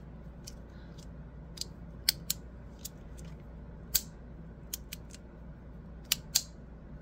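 Double-sided magnetic fidget slider, its magnetic pieces clicking into place as they are slid and flipped by hand: about ten sharp clicks, irregularly spaced.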